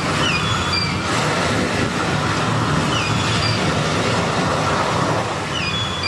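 Recorded sound effect of a rough sea: a steady rushing surf noise, with a few short, high, falling cries over it.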